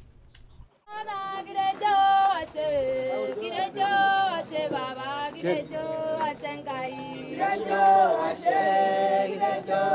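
A group of men and women singing a song together. It starts about a second in, after a brief near-silence.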